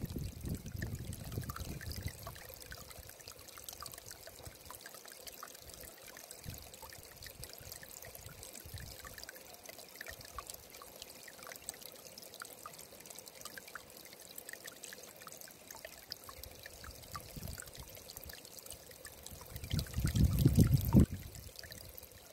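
Shallow stream trickling over stones and leaf litter: a steady babbling flow with many small splashes. A low rumble is dying away at the start, and another lasting about a second comes near the end; these are the loudest moments.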